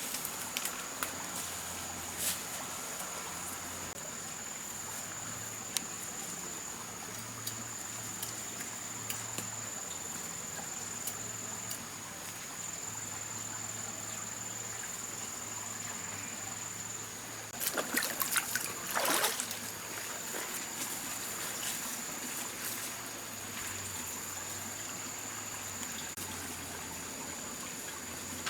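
Water trickling steadily under a constant high-pitched drone, with scattered small clicks. About eighteen seconds in comes a short, louder cluster of scrapes or splashes.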